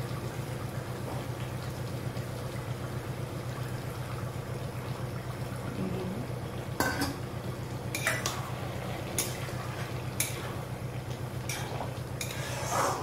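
Steel bowls and a lid clinking, and a metal spatula knocking and scraping in a wok, over a steady low hum. The first half is quieter; about half a dozen sharp metallic knocks come in the second half.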